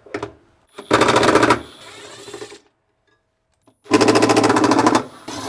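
Milwaukee M12 Fuel cordless impact driver with a 10 mm socket hammering out two bolts, one after the other. Each gives a rapid rattle of about a second, about one second and four seconds in, then runs more quietly as the bolt spins loose.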